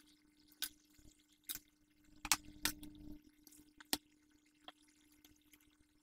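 Scattered sharp clicks and light taps, about six in the first five seconds, from paper and a paper pad being handled and set down on a hardboard drawing board, over a steady low hum.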